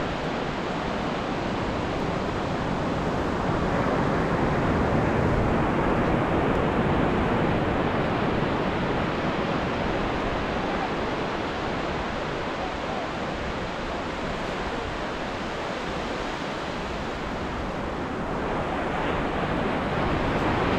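Indian Ocean surf: waves breaking and washing ashore in a continuous rush, swelling about four seconds in and again near the end.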